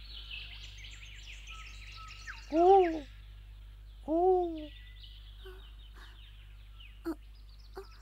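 Birds chirping and twittering in a continuous stream of short high notes, with two louder, lower calls about two and a half and four seconds in, each rising then falling in pitch. A brief click about seven seconds in.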